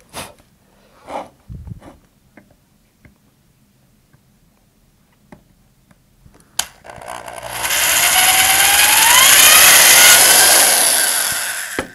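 Handheld electric drill boring a 1/4-inch hole through a wood bulkhead. After a few faint handling knocks, the drill starts about seven seconds in and runs for about five seconds, its motor whine rising in pitch and then holding before it stops.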